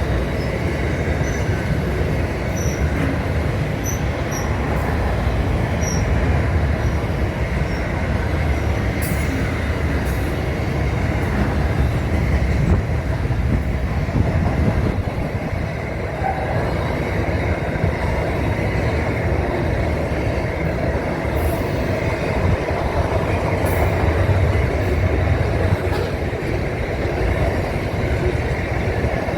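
Train running on the rails: a steady rumble of wheels and rail noise, with a few faint high squeaks.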